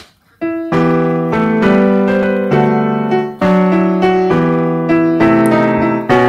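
Background music on piano, a gentle melody over chords that starts about half a second in after a brief pause.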